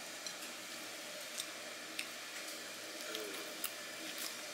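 Scattered light clicks and taps of a wooden skewer and spatula against a cast-iron skillet, with soft squishing of thick tteokbokki sauce, over a steady faint hiss.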